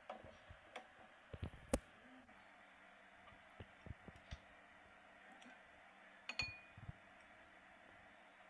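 Faint scattered clicks and taps from handling latex balloons and scissors over a glass bowl, over a steady low hiss. There is a cluster of taps in the first two seconds and a sharper click about two-thirds of the way through.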